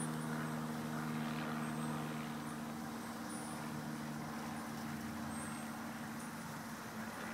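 Steady motor hum made of several held low tones, the lowest of them fading out about three seconds in.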